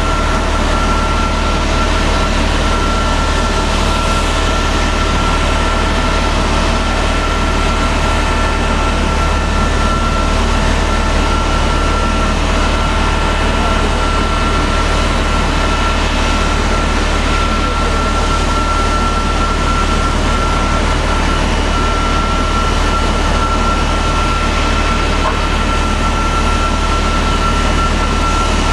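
Steady jet turbine whine over a rumble from a parked Boeing 777-200, several high tones holding one pitch with no change in level.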